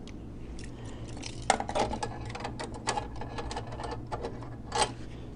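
Irregular plastic and metal clicks of a USB key being fumbled and pushed into a port on a slot machine's CPU panel, clustered in the middle with one more near the end, over a faint steady hum.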